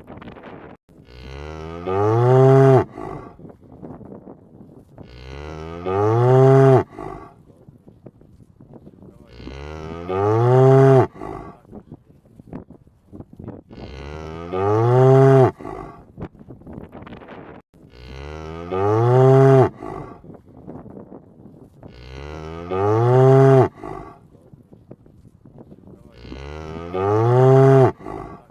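A cow mooing: one long call rising in pitch, repeated about every four seconds, seven times in all.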